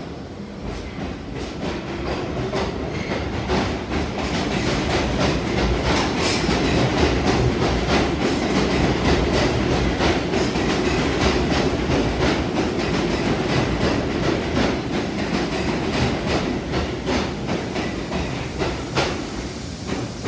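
New York City subway train pulling out and running past along the platform, steel wheels clicking rapidly over the track with a low rumble. It gets louder over the first few seconds, is loudest in the middle and eases off slightly as the last car goes by.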